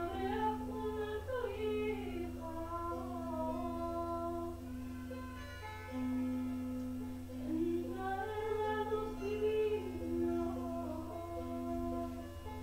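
Wordless singing in two slow, gliding phrases over a steady held drone, the second phrase starting a little past halfway through.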